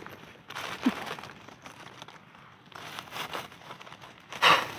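Dry leaf litter rustling and crinkling in a few separate bursts, the loudest one near the end.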